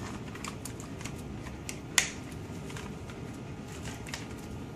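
Plastic tubing and connectors of a CRRT blood-line set being handled and fitted into the machine's guides: scattered light clicks and rattles, with one sharper click about two seconds in, over a steady low hum.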